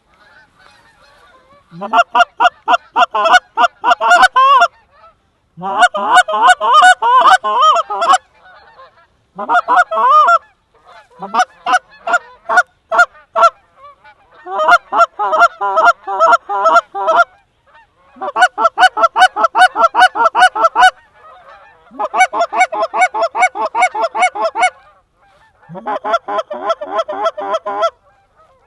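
Goose call blown in rapid, loud runs of honks and clucks. There are about eight sequences of a few seconds each, with short pauses between them, and several open on a low rising note.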